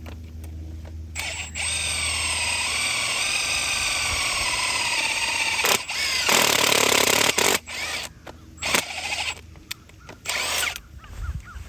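Power drill boring a pilot hole in a gate post for a hinge peg. It runs steadily with its pitch sagging slightly as it bites, then grows louder and harsher, and is pulsed in short bursts near the end.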